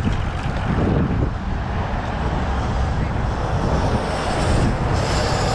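City road traffic passing: a steady rush of engines and tyres, with a car going by close about four seconds in.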